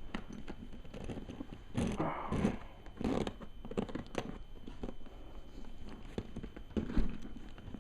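A canvas-and-leather dog carrier bag being handled and opened: uneven rustling and scraping with scattered small clicks.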